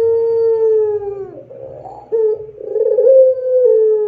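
Barbary dove of the pelung type cooing: a long, low coo that sags slightly in pitch and breaks off about a second and a half in, then a short note and another long coo that dips at its end.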